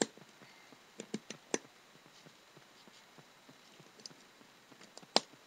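Small plastic Lego pieces clicking as they are handled and pressed together: a quick run of four clicks about a second in, and a single sharp click near the end.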